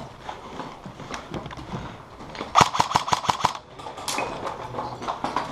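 Airsoft gun firing a fast burst of about nine shots in under a second, about halfway through, with scattered quieter clicks and scuffs around it.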